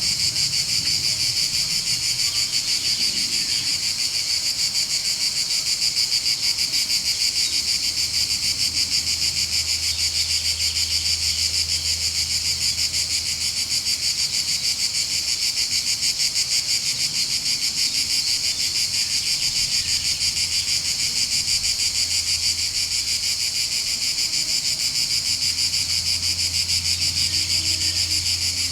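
Dense chorus of cicadas and other insects: a steady, high, rapidly pulsing buzz that does not let up.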